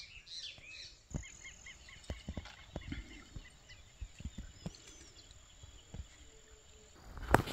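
Night-time creekside insect and animal calls: a steady high-pitched insect drone with a run of repeated short chirping calls and scattered faint knocks. In the last moments a sudden louder rustle of branches shaking, as a fish strikes the rod left among them.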